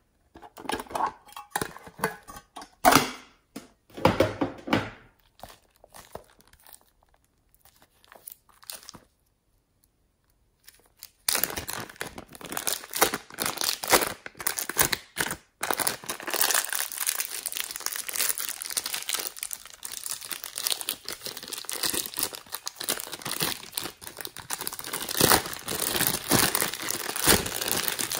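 A few scattered knocks and clicks in the first seconds. Then, from about a third of the way in, the steady crinkling and crackling of a plastic zip-lock bag being opened and squeezed to push out the pink slime inside.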